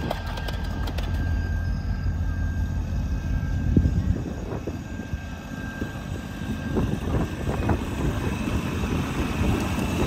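A 7½-inch gauge ride-on miniature train with a diesel-outline locomotive rolling along the track under a load of passengers: a steady low rumble, with clicking and clattering of wheels on the rails growing more frequent near the end as it comes close.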